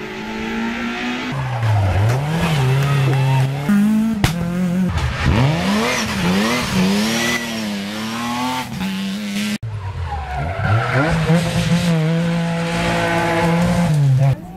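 Rally car engines revving hard, the pitch climbing and dropping again and again through gear changes, lifts and braking as the cars take a corner, with some tyre squeal. Several cars are heard in turn, with abrupt cuts from one to the next about four and nine and a half seconds in.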